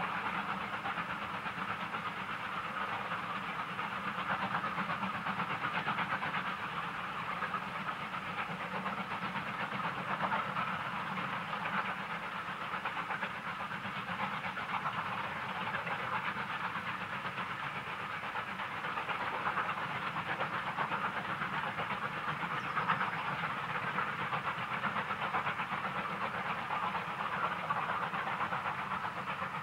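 Two steam locomotives double-heading a passenger train, heard working from a distance: a steady rushing noise of exhaust and running gear, with no separate beats standing out.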